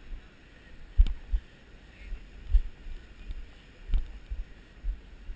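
Irregular low thumps and buffeting on a GoPro's microphone as the camera is carried, with two sharp knocks, about a second in and about four seconds in.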